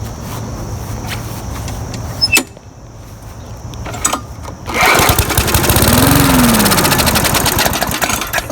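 Small walk-behind mower engine catching on carb cleaner sprayed into the carburetor: about five seconds in it fires up loudly, the pitch rising then falling, runs for about three seconds and dies down near the end. It runs only on the shot of cleaner, a sign of a fuel supply problem rather than a spark problem.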